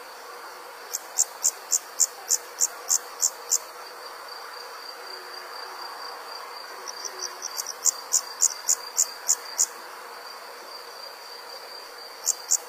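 Insect chirping: runs of about ten quick, high chirps at roughly three to four a second, with pauses of a few seconds between runs, over a steady high-pitched whine.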